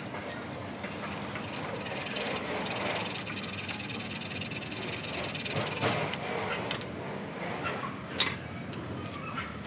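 Light handling sounds of hands working at a bonsai trunk: rustling, and a few sharp clicks, the loudest about 8 seconds in, over a steady background hiss.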